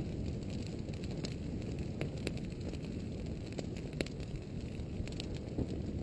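Irregular sharp crackles and pops as an advancing lava flow burns into leaves and grass, over a steady low rushing noise.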